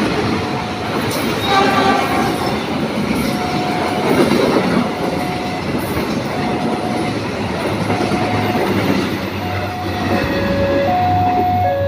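Train running past with a steady rumble and clatter of wheels on the rails. From about three seconds in, a short electronic warning tone repeats, switching to two alternating pitches near the end.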